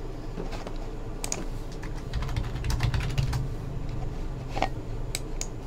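Irregular clicking keystrokes on a computer keyboard.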